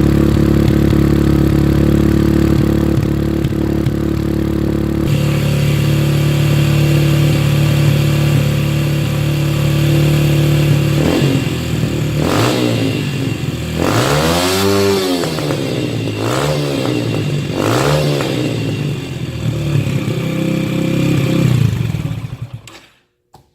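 2009 Yamaha TT-R125's single-cylinder four-stroke engine running through a Dubach Racing Development full stainless steel exhaust: idling steadily, then revved several times, with one long rev about 14 seconds in among shorter blips. It settles back to idle and the sound stops near the end.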